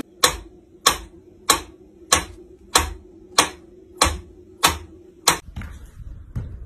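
Mechanical metronome ticking at a steady beat, about one and a half ticks a second. It cuts off after nine ticks.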